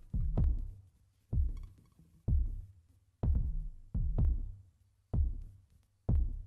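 Background music: a slow, deep drum beat, one low hit about every second, each dying away before the next.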